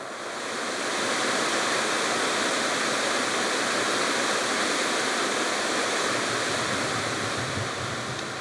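Rushing water of a mountain stream or waterfall, a steady hiss and roar that swells up over the first second and eases off toward the end.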